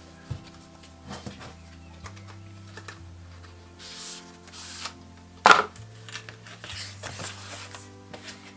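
Cardboard watch-band packaging being handled: a tray slid out of its sleeve and a folded cardboard insert opened, with light taps and rustles, two soft sliding swishes about four seconds in and a sharp knock about five and a half seconds in.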